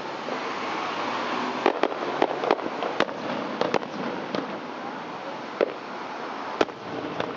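Aerial fireworks bursting over a steady hiss: about ten sharp bangs at uneven intervals, several close together in the first half and then more spaced out.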